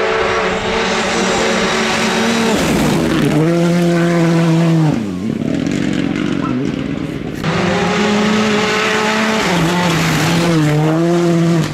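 Rally cars driven hard on a gravel stage: engines at high revs, the pitch dropping sharply and climbing again twice as the driver lifts or changes gear, with a hiss of gravel thrown up by the tyres. It goes quieter for a couple of seconds in the middle, then a car is heard at full throttle again.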